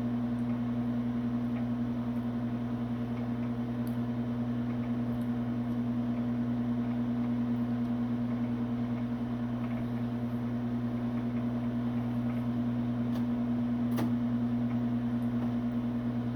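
Microwave oven running with a steady, even hum, a few faint ticks over it.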